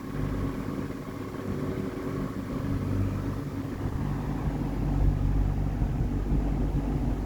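A National 401SM electric fan's KDK KB30B motor running with a steady low hum, under a low rumble that swells about halfway through.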